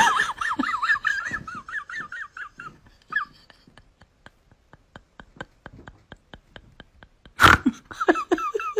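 High, fast-wavering voice-like sounds, then a steady ticking of about four clicks a second, a sudden loud burst near the end, and laughing-like voices after it.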